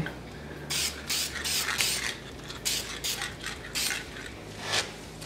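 Aerosol spray paint can being shaken, its mixing ball rattling in quick, uneven strokes.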